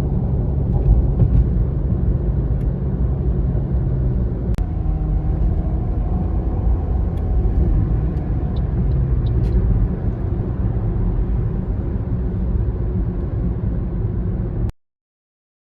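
Steady rumble of a car driving along a road, cutting off abruptly near the end.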